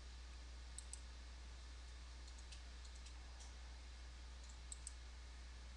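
Faint computer mouse clicks: a few scattered single and double clicks over a steady low electrical hum.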